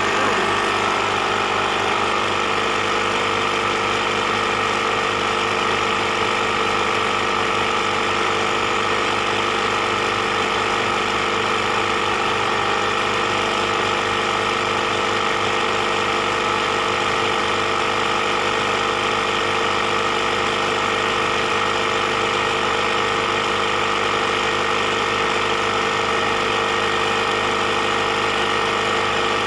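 Electric Slime tire inflator running steadily, pumping air into a backhoe's rear turf tire.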